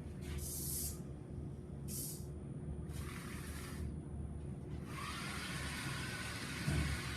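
Small robot car's electric drive motors running in short hissing whirs, stopping and starting as it manoeuvres, then running steadily from about five seconds in.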